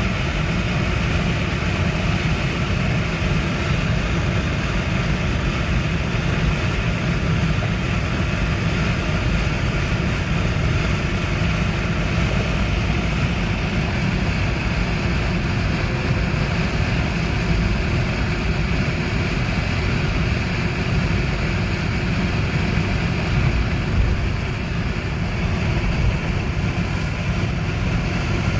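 Steady low rumble of a 2004 Chevrolet Trailblazer being driven, engine and road noise heard from inside the cabin.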